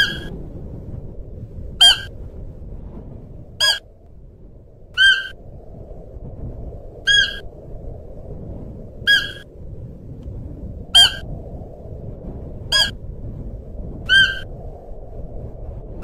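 Siberian musk deer giving short, high-pitched calls, about nine of them, repeated roughly every two seconds, some dropping sharply in pitch at the end. A steady low background noise runs beneath the calls.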